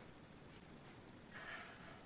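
Near silence, with one brief faint rustle about a second and a half in as chopped kale is brushed off a wooden cutting board into a food processor bowl.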